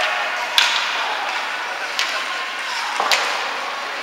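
Ice hockey sticks and puck striking: three sharp cracks, the loudest about half a second in and the others about two and three seconds in. They sound over the steady noise of the rink.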